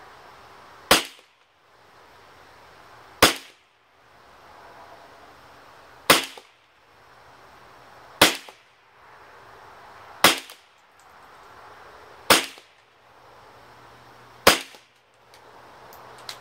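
Seven single shots, about two seconds apart, from a GSG AK-47 .22 rimfire rifle firing small CCI .22 Short round-nose rounds. Each is a sharp crack with a short tail.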